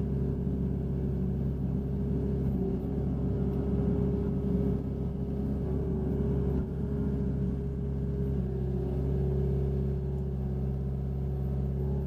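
Hitachi Zaxis 60 USB mini excavator's diesel engine running steadily, heard from inside the cab, while the boom and bucket dig a trench and swing to dump. The engine's pitch wavers slightly a few times as the hydraulics take load.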